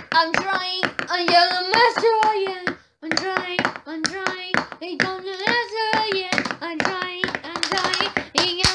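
A child's voice singing a quick run of wordless syllables to a repeating tune, with sharp taps keeping a fast rhythm. There is a short break about three seconds in.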